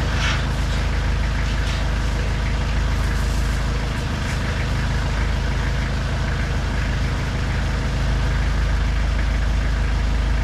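Truck-mounted forklift engine idling steadily, with a brief clatter near the start.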